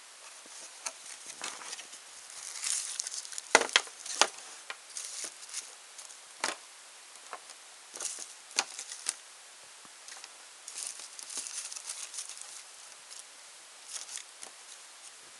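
Hands rummaging through a cardboard phone box and its accessories: scattered rustling and crinkling of a plastic bag, with light taps and knocks of the box and parts, the loudest a few sharp clicks about three and a half to four seconds in.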